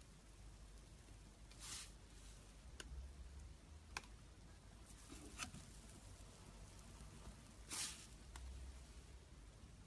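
Slime being played with, faint: two short squishes, about two seconds in and near the end, with a few small sharp pops or clicks between them.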